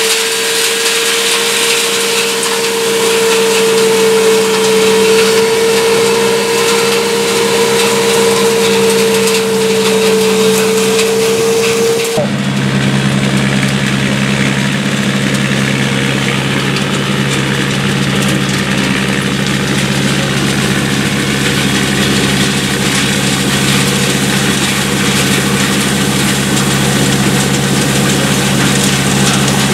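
Engine of a Monchiero walnut harvester running steadily as its sweeper works through the leaf litter, with a steady whine. About twelve seconds in, the sound switches abruptly to a deeper, lower hum.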